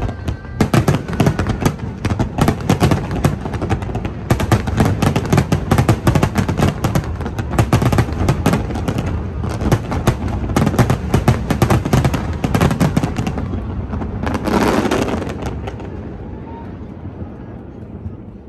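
Fireworks going off in a rapid, dense crackle of bangs, one last rushing burst about fourteen seconds in, then fading away.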